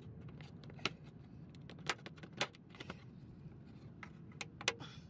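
Sharp plastic clicks and snaps, six or so at uneven intervals, as push-type retaining clips are pried out of a truck's plastic inner fender liner with a trim clip removal tool.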